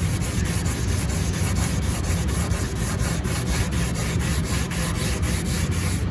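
Car door panel being block-sanded by hand with 180-grit sandpaper, quick back-and-forth rubbing strokes at about five a second, scuffing the dented crease down before body filler goes on.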